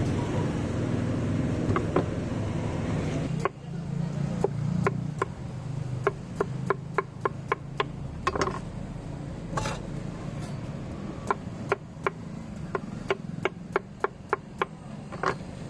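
Knife chopping through watermelon on a cutting board: runs of sharp chops, about three or four a second. Street traffic noise underneath at first drops away about three and a half seconds in.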